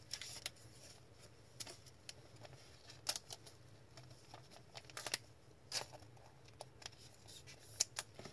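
Faint scrapes and clicks of plastic: a trading card slid into a clear plastic sleeve and rigid top loader by gloved hands. The few sharper scrapes come about three, five, six and eight seconds in.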